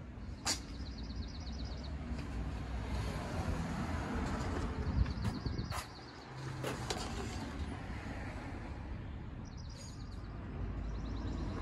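A low, steady background rumble with a small bird trilling in quick high chirps several times, and three sharp clicks.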